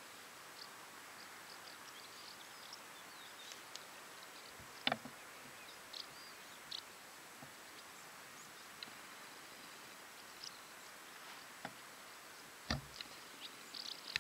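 Faint outdoor ambience: a steady hiss with scattered short, high chirps, and a few sharp knocks, the loudest about five seconds in and another near the end.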